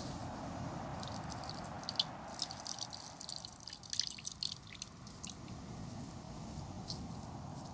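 Coconut milk trickling and dripping into an earthen clay bowl as a handful of grated coconut is squeezed by hand. The drips and small splashes come thickest a couple of seconds in, then thin out, over a steady low background hiss.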